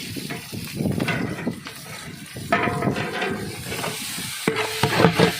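A ladle stirring and scraping in a large pot of onion, tomato and green chilli masala frying in oil. The mixture sizzles, with mint and coriander leaves just added.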